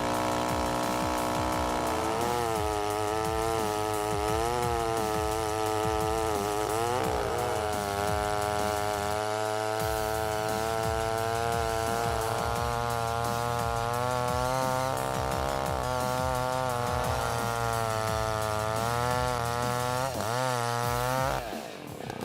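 Chainsaw engine running hard, its pitch dipping and rising again and again as it cuts. It stops about a second before the end.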